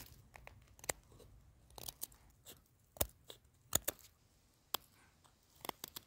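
Pocket knife blade cutting a notch into a peeled wooden stick while whittling a spoon: a string of short, irregular cuts and cracks, the loudest about three seconds in.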